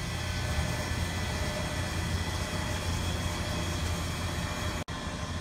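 Steady machinery hum with a hiss over it: a kitchen refrigeration compressor running.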